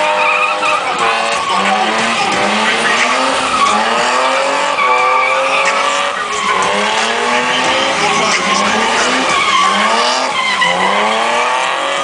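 BMW E30 drifting in circles on wet asphalt: its engine revs up again and again in rising sweeps, about every second and a half, while the rear tyres skid and squeal.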